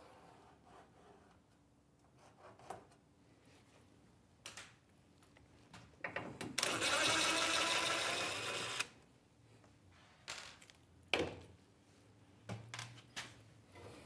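Cordless DeWalt drill running for about two seconds, backing out a screw while a cabinet is taken apart, with a few sharp clicks and knocks of handling the wood before and after.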